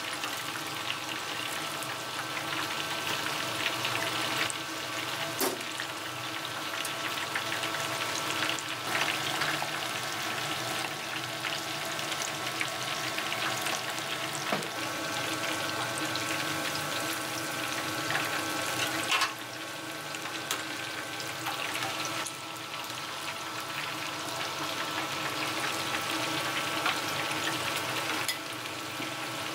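Kakiage, a battered vegetable and seafood fritter, sizzling steadily as it deep-fries in hot oil in a steel wok. A steady hum runs underneath, and there are a few brief clicks.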